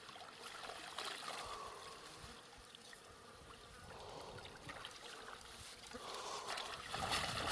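Faint water trickling and splashing from a wet seine net being gathered up in shallow water, a little louder near the end.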